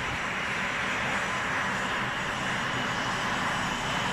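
Jet aircraft engine running steadily: an even rushing noise that does not change in pitch or level.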